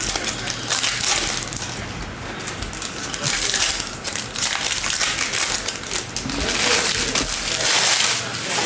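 Foil wrapper of a Topps Chrome baseball card pack crinkling as it is torn open and handled, in repeated surges of crackle.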